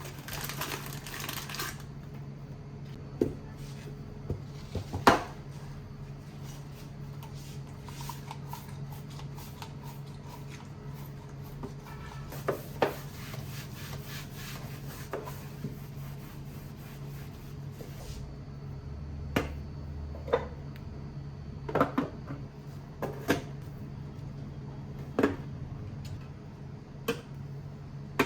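Scattered knocks and clinks of dishes, cutlery and cupboard doors being handled, one sharp knock at a time with pauses between, over a steady low hum.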